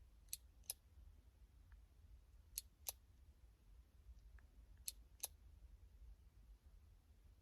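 Three sharp double clicks, each pair about a third of a second apart and the pairs about two seconds apart, over a faint low hum in an otherwise near-silent room.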